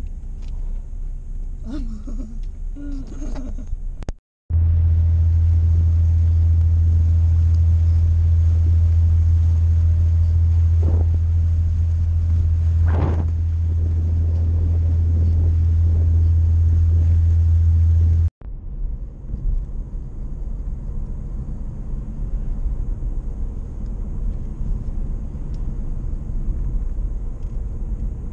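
Low, steady drone of a car ferry's engines heard on its deck, running unbroken for about fourteen seconds and the loudest sound here. Before it and after it, the low rumble of a car, the later stretch while driving on the road.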